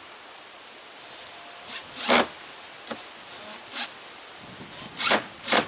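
A screw being turned into wood with a hand screwdriver, heard as about six short scraping strokes, the loudest about two seconds in.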